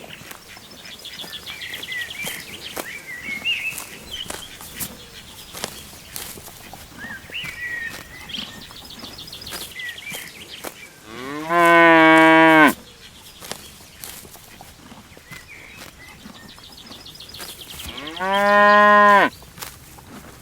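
A cow mooing twice, two long, loud calls about six seconds apart, the first sliding up in pitch before it levels off. Small birds chirp faintly in between.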